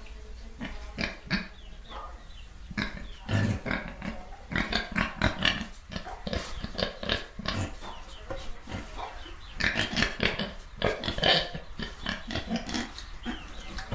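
Pigs grunting and oinking in many short, irregular calls, several animals overlapping, busiest in the middle and again near the end.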